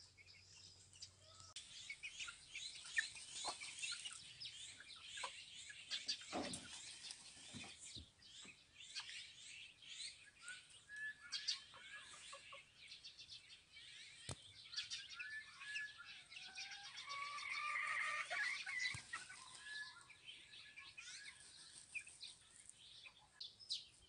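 Young Ameraucana chicks peeping softly, many short high cheeps, with a run of clearer peeps in the middle.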